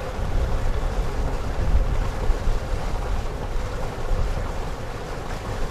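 Wind buffeting the microphone: a gusty low rumble.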